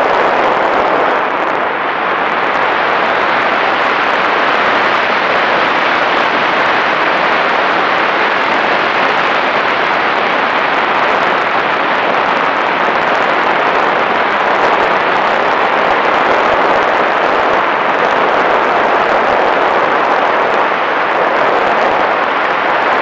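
Steady loud rush of airflow and propeller noise over the onboard camera microphone of a small fixed-wing UAV in flight.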